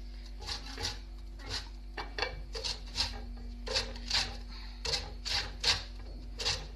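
Citrus peel being grated on a metal hand grater: short rasping strokes, about two a second.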